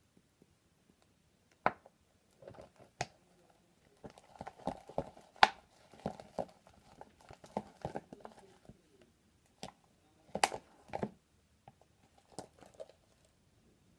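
Plastic stir stick scraping and knocking against the inside of a red plastic party cup as thick, foamy shaving-cream slime is stirred hard. A few sharp clicks first, then a dense run of irregular scrapes and clicks from about four to nine seconds in, and a few more louder knocks about ten seconds in.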